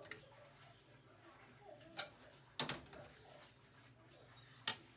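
Metal spoon knocking and scraping against a stainless steel pan while scooping fried rice: a few sharp clicks, the loudest near the end, with a longer scrape just past halfway.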